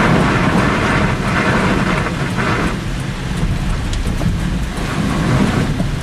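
Steady hiss of rain and running water over a continuous low rumble. The hiss is strongest for the first two and a half seconds, then eases.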